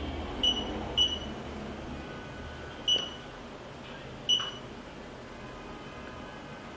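Touch-screen alarm control panel giving short, high key-press beeps, four in all at uneven spacing.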